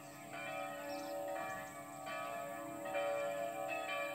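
Church bell ringing, struck about once a second, each stroke ringing on under the next.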